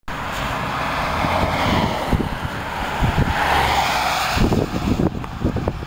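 A car driving past on the road, its tyre and engine noise swelling and then fading about two-thirds of the way through. Wind buffets the microphone with low rumbles in the second half.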